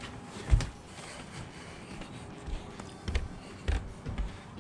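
A few soft, low knocks and thumps, with one louder thump about half a second in, over a quiet steady background.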